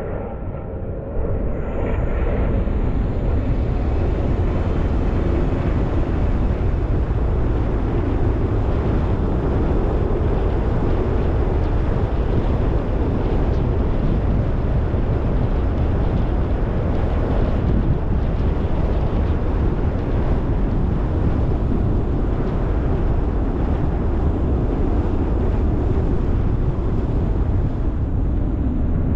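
Steady rumble and rush of a car on the move: tyre, engine and wind noise, heaviest in the deep low end. It gets louder about a second in and then holds steady.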